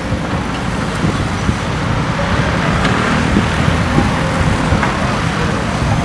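JCB 3DX backhoe loader's diesel engine running steadily under working load while the backhoe arm is worked and the bucket is brought down into the soil.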